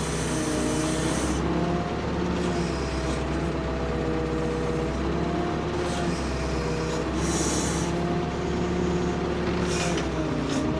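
Ford P-42 excavator's engine running while the machine works, its pitch dipping and recovering several times as it takes load. There are short bursts of high hiss about seven and ten seconds in.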